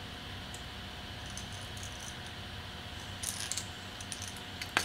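Faint light clicks and taps of hard plastic jerkbait lures being handled and set down on a tabletop: a few about three seconds in and a sharper click near the end, over a steady low hum.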